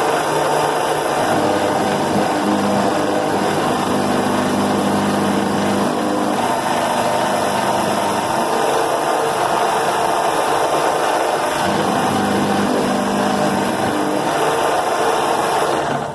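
Hobby CNC milling machine cutting a metal block: the spindle and end mill run steadily with a high whine over the cutting noise, and a lower hum comes and goes at times as the machine moves.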